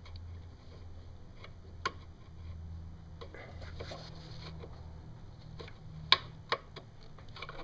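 A few light, sharp clicks and taps as the throttle and cruise-control cables are worked out of the intake manifold's cable bracket by pressing its locking tab. The loudest click comes about six seconds in, over a steady low hum.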